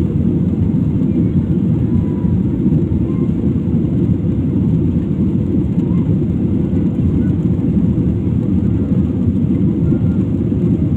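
Steady low rumble of an airliner's engines and rushing air, heard inside the passenger cabin.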